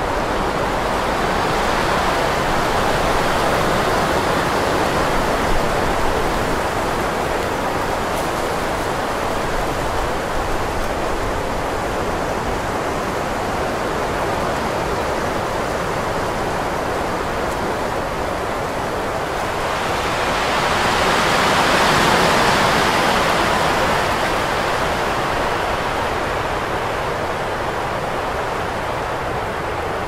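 Wind blowing in a steady rush that swells into a stronger gust about twenty seconds in, then eases off again.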